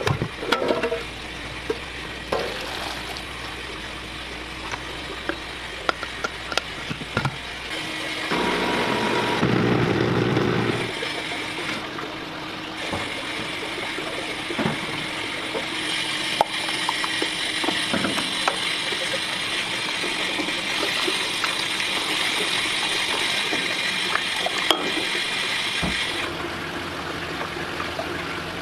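Kitchen prep clatter: stainless steel containers and utensils knocking and clinking, with liquid poured into a steel blender jar. A steady hiss runs through the later part.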